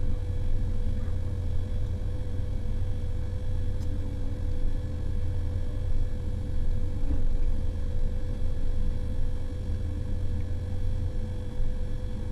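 Heavy motor grader's diesel engine running steadily under load, a constant low drone with a steady whine above it.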